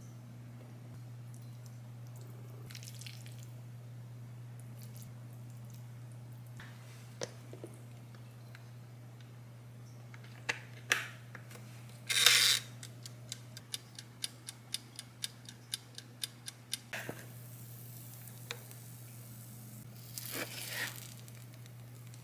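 An electric sandwich maker's dial being turned by hand: a short scrape, then a run of evenly spaced clicks, about three a second, for about four seconds, over a steady low hum. Light handling clicks and rustles come before and after.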